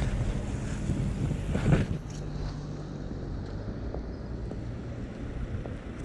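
Street ambience: a steady low rumble of vehicle traffic with an engine hum that drops in pitch, and one louder surge of rumble or wind on the microphone just under two seconds in.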